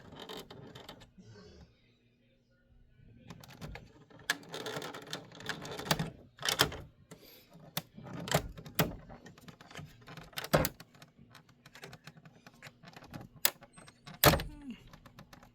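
Irregular plastic clicks, knocks and rattles as a Frigidaire window air conditioner's parts are handled and tried out by hand, over a faint steady hum.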